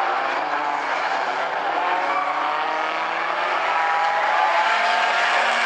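Several Bumblebee-class compact race cars running at speed around the track, their engines overlapping over a steady haze of tyre and track noise. Several engine pitches climb slightly midway.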